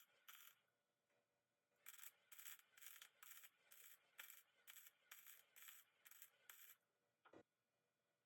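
Faint rhythmic rubbing strokes, about two to three a second, for around five seconds, then a single dull thump.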